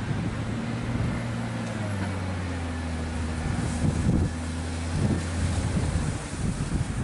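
A vehicle engine running steadily, with a low hum and rough wind-like noise. There are a few louder rough bursts around four and five seconds in.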